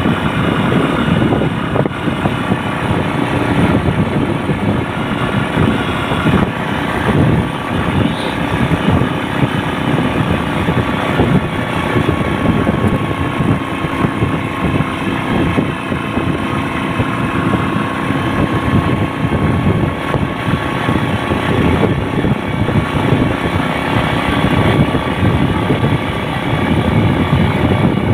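A motor vehicle running steadily, with wind buffeting the microphone in a rapid, uneven rumble.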